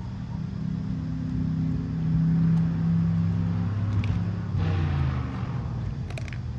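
Low, steady engine hum of a motor vehicle, swelling about two seconds in and easing off after about five seconds, with a few short clicks near the end.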